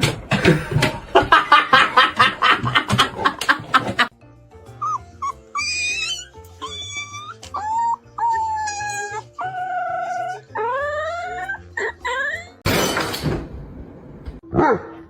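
A dog barking rapidly, about four barks a second, which stops suddenly after about four seconds. Music with a gliding, wavering melody follows, and near the end there is one loud burst of noise.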